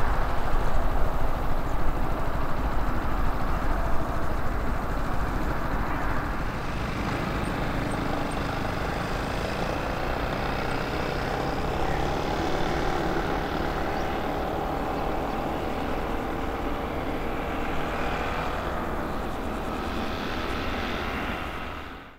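Four Avco Lycoming ALF502 turbofans of a BAe 146-100 at takeoff power as the airliner lifts off and climbs away: a steady jet engine noise with a whine in it, growing quieter over the first few seconds and then holding steady. It fades out quickly near the end.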